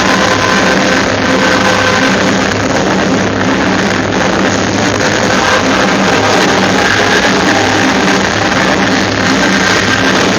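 Loud rock music, the soundtrack of a fireworks show. It is a steady, dense wash of sound.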